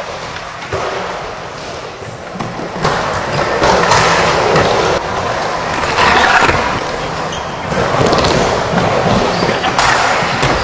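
Skateboard wheels rolling through a wooden bowl, the rushing sound swelling and fading with each pass, with a few sharp clacks of the board and trucks hitting the coping.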